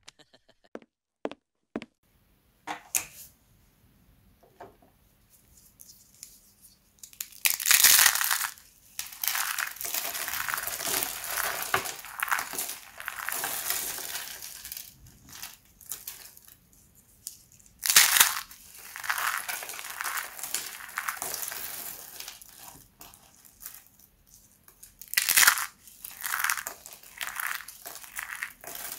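Dry, hard soap crunching and crumbling as it is broken apart, after a few faint taps. From about seven seconds in there are long spells of close, dense crackling, with three louder crunches.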